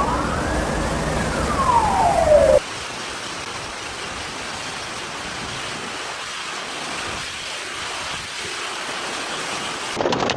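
A wailing siren rising and falling in pitch cuts off about two and a half seconds in, giving way to the steady rushing hiss of a heavy storm downpour. Rapid sharp clicks break in just before the end.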